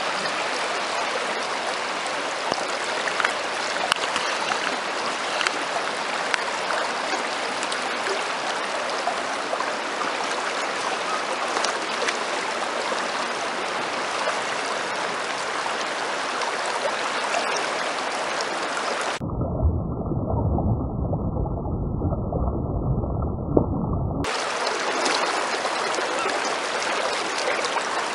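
Swift river current rushing in a steady wash of water noise. About two-thirds of the way through, the sound turns muffled and low for about five seconds, then returns to the open rush.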